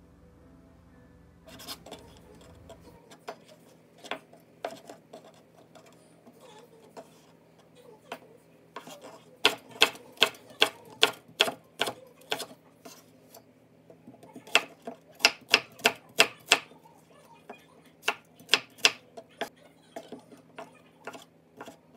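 Kitchen knife chopping on a wooden cutting board, slicing green onion, onion and fish cake: runs of sharp taps at about three a second, with short pauses between runs.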